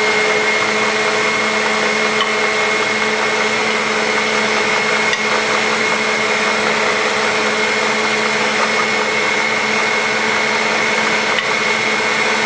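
Bosch 450 W stand mixer running steadily, its beaters turning in cake batter: a constant motor hum with a steady whine.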